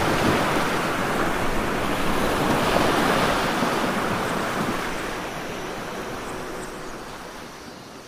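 Water splashing and churning as a brown bear thrashes in a pool: a loud rush that starts suddenly and fades slowly over the last few seconds.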